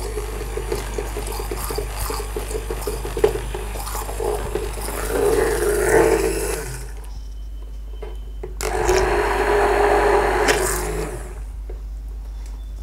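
Hand-held immersion blender running in a pot of cooked toor dal, churning it smooth. It runs for about seven seconds, stops briefly, then runs again for about two and a half seconds before stopping.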